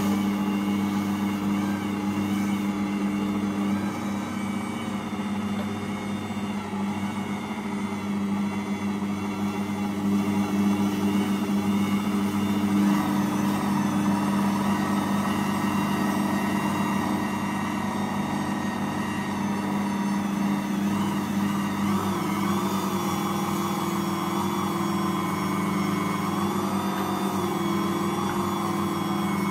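Ankarsrum 6230 stand mixer running steadily while kneading a heavy bread dough, a continuous motor hum that shifts slightly in pitch a couple of times as the load changes.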